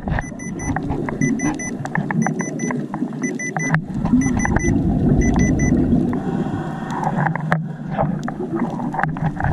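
Underwater sound picked up through a GoPro's waterproof housing: a steady low wash of water noise dotted with many sharp clicks. Short high electronic beeps repeat in twos and threes through the first two-thirds.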